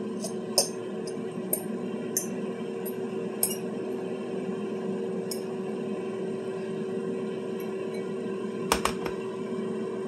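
Metal fork scraping and tapping against a ceramic bowl as tuna mixture is scooped out: scattered light clinks, with a louder double knock near the end as the bowl is set down on the counter. A steady low hum runs underneath.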